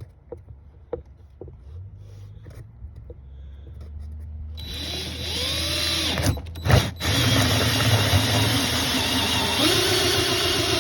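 Power drill with a small hole saw cutting an access hole into the HVAC box to reach the evaporator temperature sensor. After a few seconds of light clicks it starts about four and a half seconds in and runs steadily with a high whine, with two sharp knocks early in the cut.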